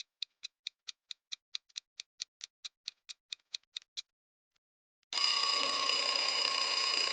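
Clock-ticking countdown sound effect, about four to five even ticks a second, stopping after about four seconds. After a short pause comes a steady ringing alarm tone lasting about two and a half seconds, marking that the time to answer is up.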